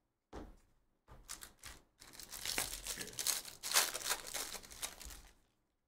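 Foil wrapper of a baseball card pack being torn open and crinkled by hand: a few short rustles, then about three seconds of continuous crinkling that fades out near the end.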